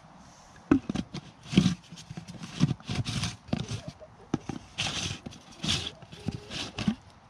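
Plastic screw-on bucket lids being turned and handled: an irregular run of hard plastic knocks, clicks and short scrapes.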